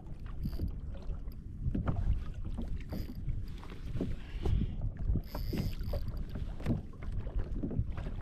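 Wind buffeting the microphone and water slapping against a fishing kayak's hull, with scattered small knocks.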